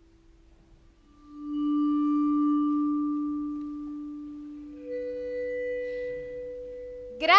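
Vibraphone holding long, ringing metal-bar notes: a low note swells in about a second in and sustains for several seconds, and a higher note joins about five seconds in.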